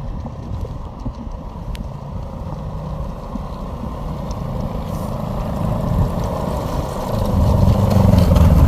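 Snowmobile engine running, a low rumble that grows louder toward the end.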